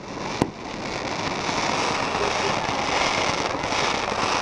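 Aerial fireworks display: one sharp bang shortly after the start, then a dense, steady crackling from many small bursts overhead.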